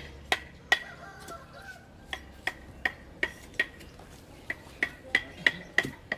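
Repeated sharp metallic taps, each with a brief ringing note, about a dozen in all, coming in runs of roughly three a second with short pauses between the runs.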